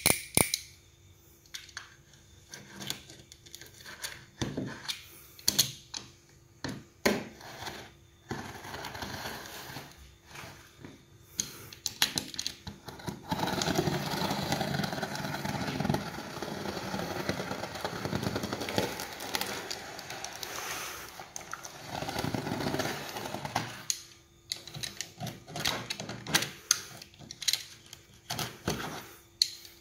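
Snap-off utility knife slicing through packing tape on a cardboard box: a continuous scraping cut through the middle stretch, with scattered taps and clicks of the blade against the box before and after.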